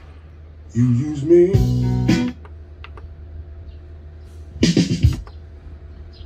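Short snatches of recorded guitar music played from a Pioneer CDJ-400 through a Bose MA12 line-array and MB4 bass speaker system, starting and cutting off as the player's buttons are worked: one burst of about a second and a half near the start, another brief one about five seconds in. A low steady hum fills the gaps between them.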